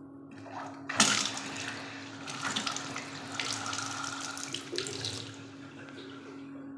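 Tap water running into a ceramic wash basin from a mixer tap: it starts suddenly about a second in, runs for about four seconds and is shut off.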